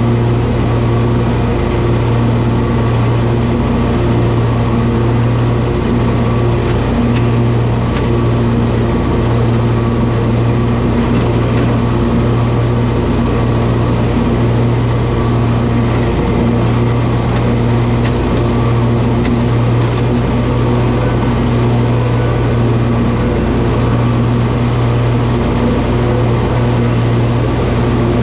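Toro zero-turn mower's engine running steadily at a constant speed, a loud even hum.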